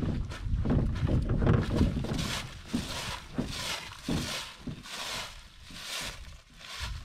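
Footsteps crunching through dry fallen leaves at a steady walking pace, about one step every three-quarters of a second. A low rumble sits under the first couple of seconds.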